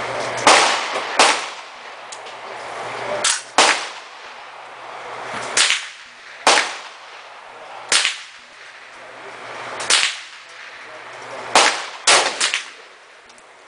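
Semi-automatic AR-15 carbine with a short 10-inch barrel firing single .223 shots, about a dozen sharp cracks at uneven intervals of roughly one to two seconds, each with a brief echo.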